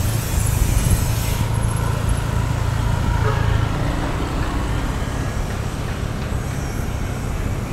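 Steady city road traffic, cars and motorbikes, heard from a moving bicycle, with a low rumble of wind on the microphone. The hiss is louder for the first second and a half.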